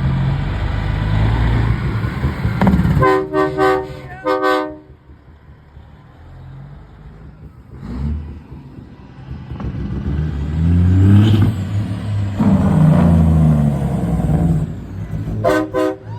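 Semi-truck diesel engines running loudly, broken about three seconds in by a few short truck-horn blasts. After a quieter lull, an engine revs up and down loudly, and more short horn blasts sound near the end.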